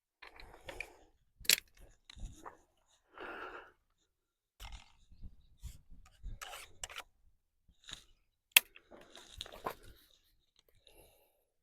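Handling noise around a crossbow: a run of knocks, clicks and scrapes, with two sharp loud snaps, about a second and a half in and again about three seconds before the end.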